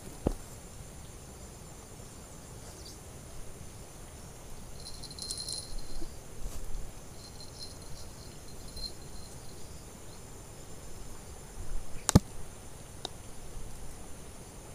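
A steady high-pitched buzz of insects over a low rumble, with a few short high chirps midway. One sharp knock about twelve seconds in is the loudest sound, and a fainter click comes right at the start.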